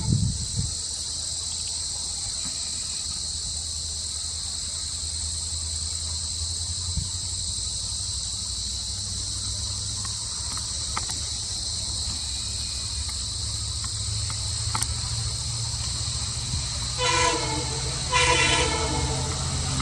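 Indian Railways diesel locomotive running with a steady low engine rumble under the constant chirring of crickets. Near the end the locomotive's horn sounds twice, a short blast followed by a slightly longer one.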